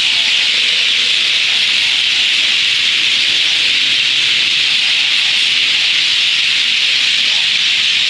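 A large flock of birds chattering together at their evening roost, so many calls at once that they merge into a steady, high-pitched wash of sound.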